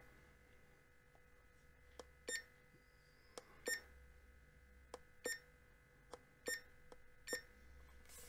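Buttons on an LED digital alarm clock being pressed, five times: each press a faint click followed by a short electronic beep confirming the press.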